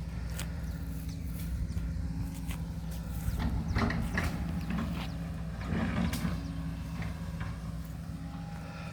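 Backhoe's engine running steadily, with scattered knocks and clatters over it, loudest twice in the middle.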